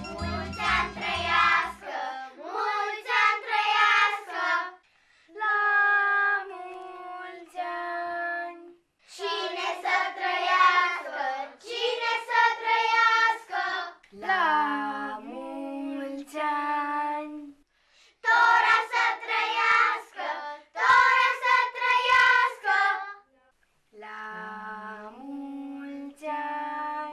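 Children singing a birthday song without accompaniment, in short phrases of held notes with brief pauses between them. A plucked-string music track fades out under the first couple of seconds.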